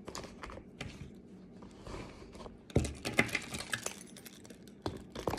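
Small items being put back into a small crossbody purse: scattered clicks and knocks of lip gloss tubes, a wallet and other small things, a jingle of car keys and some rustling, with a busier run of clicks about three seconds in.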